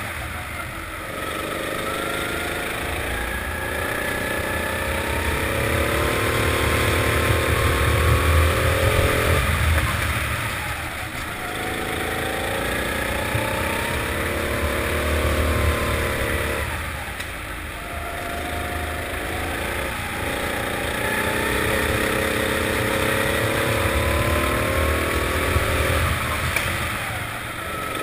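Four-stroke kart engine heard onboard under way, its revs climbing along each straight and falling off for the corners, three times over.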